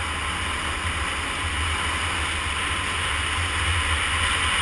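Steady rush of wind over the microphone of a motorcycle moving at road speed, on a 2013 Honda CBR250R, with a strong low rumble underneath.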